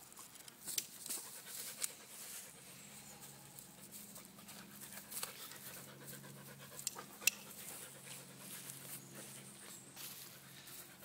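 Labrador retriever panting in faint, irregular breaths, with a few sharp clicks. A faint low hum sits underneath through most of the stretch.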